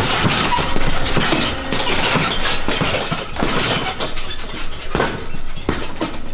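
Boxing gloves punching a heavy bag: irregular thuds a fraction of a second to a second apart over busy gym noise.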